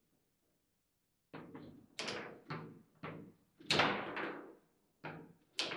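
Table football play: the ball being struck by the players' figures and rods, a string of sharp knocks with short ringing tails. They start after about a second of quiet and come roughly twice a second, the loudest near four seconds in.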